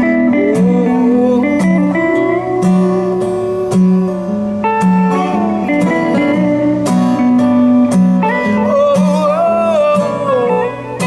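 Instrumental break: a hollow-body electric guitar plays a lead line with bent, gliding notes over a steadily strummed acoustic guitar.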